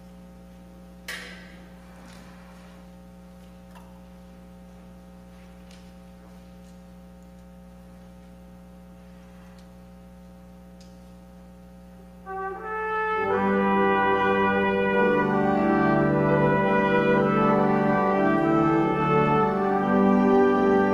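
Quiet room tone with a steady low hum and a single click about a second in; then, about twelve seconds in, instrumental music starts loud, sustained brass-like chords changing slowly.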